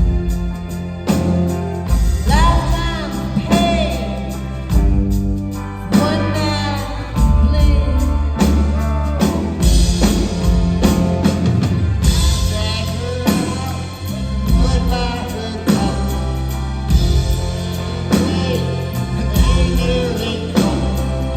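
A live rock band playing, with a singer's voice over guitars, bass and drums.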